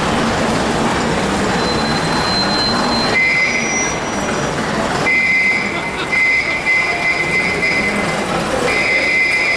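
London Transport RT-type double-decker bus moving slowly under engine. From about three seconds in, a sustained high-pitched squeal comes and goes in long spells.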